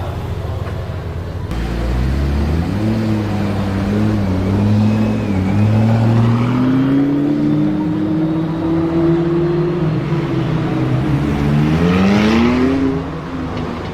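A performance car's engine pulling away under acceleration, its note climbing steadily for several seconds, followed by a second quicker rev rise near the end.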